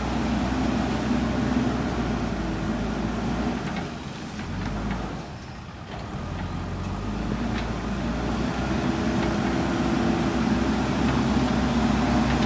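JCB 3DX backhoe loader's diesel engine running, its revs dropping briefly a little before the middle and then building back up, with a few faint knocks.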